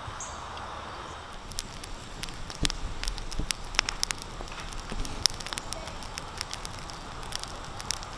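Wood campfire crackling, with sharp, irregular pops that set in about a second and a half in over a steady hiss.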